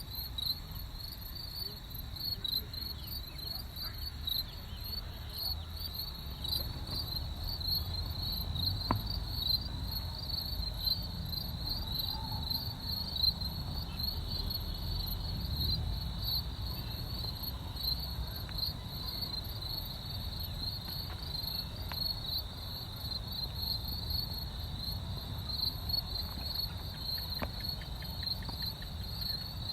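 Crickets chirping continuously, a steady high-pitched pulsing trill, over a low background rumble.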